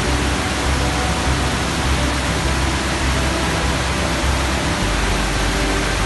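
Large waterfall in high, muddy flow, pouring over a rock ledge: a steady, loud rush of falling water.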